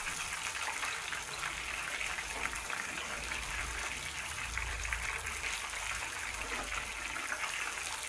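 Battered anchovies deep-frying in hot oil on high flame: a steady sizzle and crackle of bubbling oil.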